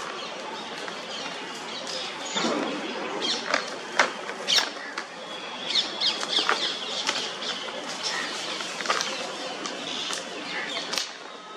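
Two blackbuck bucks fighting: several sharp clacks of their horns knocking together over steady scuffling and scraping of hooves in dry dirt. Birds chirp faintly in the background.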